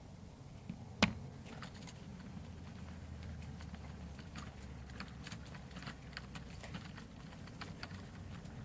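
Model railway goods wagons and brake van rolling slowly over rail joints and points, giving a run of small irregular clicks over a faint low rumble. One sharper, louder click comes about a second in.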